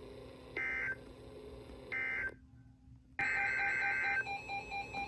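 Emergency Alert System digital data bursts on NOAA Weather Radio: two short warbling bursts of data tones about half a second and two seconds in, marking the end of the warning message. After a moment of dead air, a longer data burst starts about three seconds in, the coded header of the next alert.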